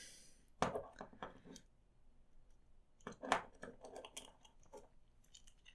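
Faint, scattered clicks and rubbing of a small plastic action figure handled in the fingers as its arm and shoulder joints are moved.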